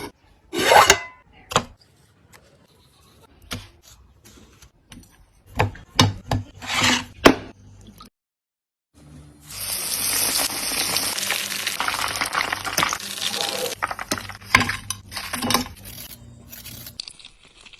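Cooking sounds: a utensil clinking and scraping against a pan, then after a brief break, food sizzling in hot oil for about five seconds before it tapers off among a few more clinks.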